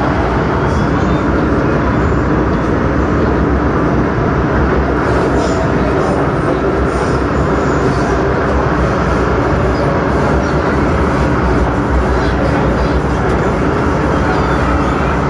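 MTR Kwun Tong line M-train running at speed through the underground tunnel, heard from inside the carriage: a steady, loud rumble of the wheels on the rails.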